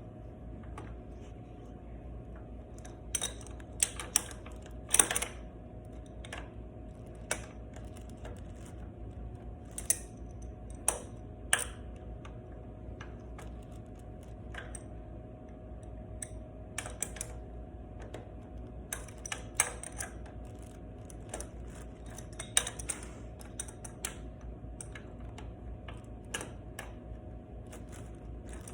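Irregular sharp clicks and light metallic clinks, like tools and small metal parts being handled during an oil change, over a steady faint hum.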